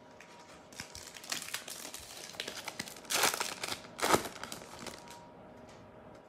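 A wrapper on an NBA Hoops trading-card pack being crinkled and torn open, with two louder rips about three and four seconds in.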